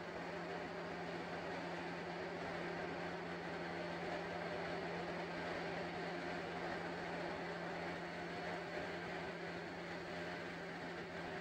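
A steady low buzzing hum with one strong held tone, unchanging throughout.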